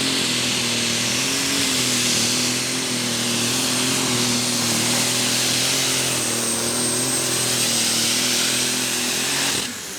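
Turbocharged super stock pulling tractor engine running flat out under load during a pull: a loud, steady howl whose pitch wavers slightly. It falls off sharply near the end.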